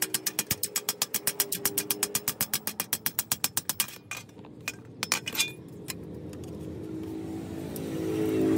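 Rapid, even hammer taps on a curved strip of rusty sheet steel held against an iron anvil block, about five a second, stopping about four seconds in, with a few loose taps after. A motor hum then grows louder near the end.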